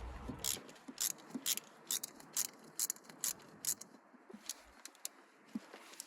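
Ratchet wrench clicking in a string of sharp clicks, two or three a second, as a socket is worked on a spark plug.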